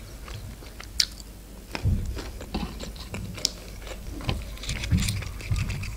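A person biting into and chewing a breaded McDonald's chicken nugget dipped in sauce, with irregular soft chewing noises and small clicks.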